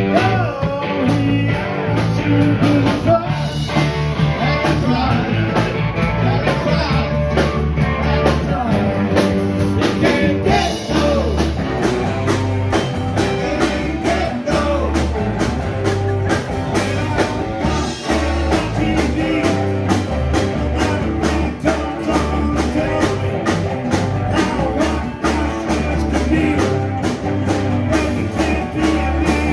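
Live rock band playing, with electric guitar over bass and drums keeping a steady beat.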